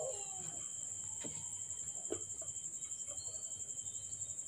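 Insect chirping in a fast, even, high-pitched trill, with a few faint clicks.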